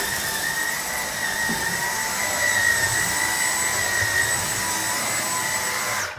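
Dyson V10 Cyclone Absolute cordless stick vacuum running steadily with a high motor whine, cutting off abruptly near the end as the trigger is released.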